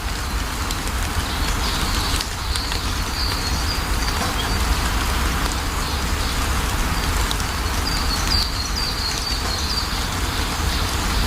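Steady rain falling, with a deep constant rumble underneath, while small birds chirp briefly again and again, several in quick succession near the end.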